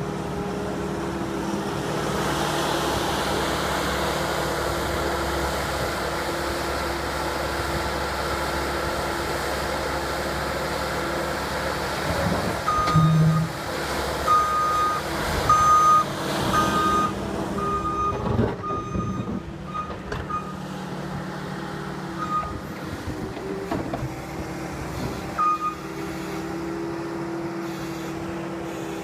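Skid steer engine running steadily. About halfway through its backup alarm starts beeping, roughly once a second for several seconds, then twice more, as the machine reverses.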